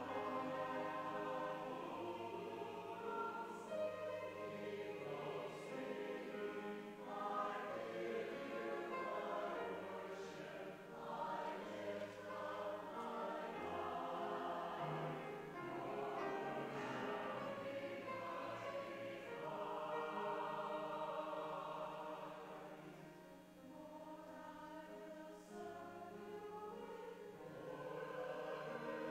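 Mixed adult church choir singing an anthem, several voices in harmony. It grows softer for a few seconds near the end, then swells again.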